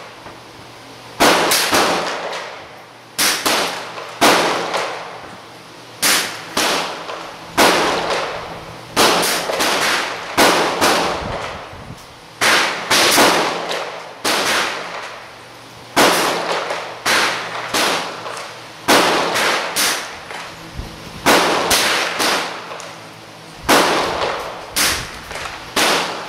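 Gunshots on an indoor firing range: about thirty sharp cracks, singly or in quick strings of two to four, each with a short echo off the range walls.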